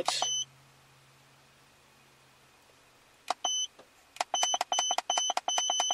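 Handheld Centech OBD-II code scanner beeping as its keypad buttons are pressed, each beep with a small click. There is a single short beep about three and a half seconds in, then a quick run of short beeps, several a second, as the arrow key is pressed repeatedly, ending in a longer beep near the end.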